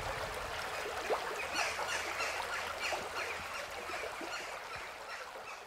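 Shallow stream running over stones, with a bird calling in quick, repeated short notes over the water; the sound gets gradually quieter toward the end.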